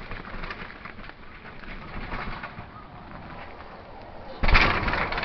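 Outdoor ambience with a bird calling. About four and a half seconds in, a sudden loud rush of noise begins as a downhill mountain bike comes down the dirt trail toward the camera.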